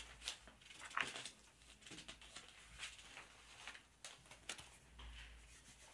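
Pages of a book being turned and leafed through: faint, scattered paper rustles and flicks.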